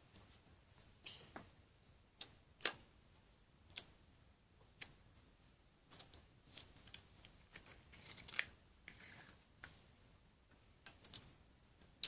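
Sticky glitter slime being squeezed and poked by hand, giving off faint, irregular clicks and small pops, with a short crackly patch a little past the middle.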